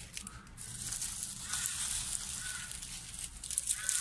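Dry crinkling and crackling of hands working among papery onion skins and potting soil, and pressing a sprouted onion set into a hole in a thin plastic bottle, with many small crackles.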